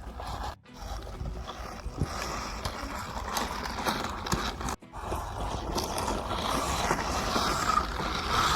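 Radio-controlled truck running: its small motor and gears whir while its tyres scrape and crunch over dirt, with scattered clicks. The sound cuts out briefly twice.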